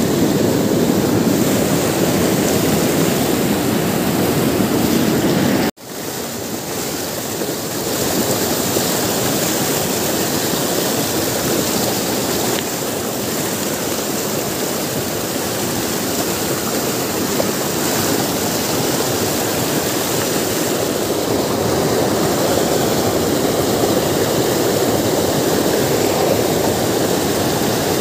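Rushing white water of a fast mountain river pouring over and between boulders, a loud, steady rush that drops out for an instant about six seconds in.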